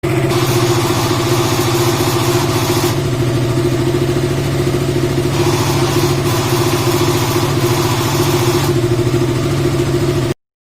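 KTM Duke 200's single-cylinder engine running steadily with an abnormal noise. A harsher noise rises over the engine twice, about three seconds each time, then the sound cuts off abruptly near the end. The noise goes away when the headlight is switched on; another mechanic called it a main bearing, but the mechanic here suspects the magneto (stator) coil.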